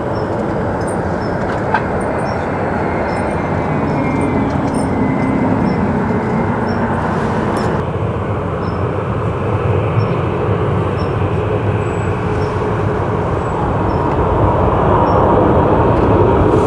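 Jet airliner engines running at taxi power as an aircraft taxis close by: a steady, loud rumble with a whine that falls in pitch over several seconds, then steadier tones near the end.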